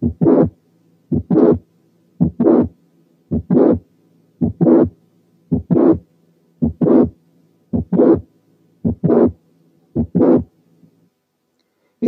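Recorded heart sounds of mitral valve prolapse (click-murmur syndrome): each beat is a first heart sound, then a mid-systolic click followed by a late systolic murmur running up to the second heart sound, with the early part of systole clear. About ten beats come a little over a second apart over a faint steady hum, stopping about a second before the end.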